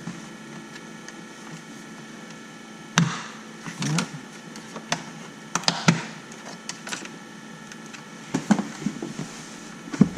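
Plastic dash trim being pried loose and handled: irregular clicks and knocks of plastic clips and panels. There are a few sharper knocks and snaps around the middle and near the end.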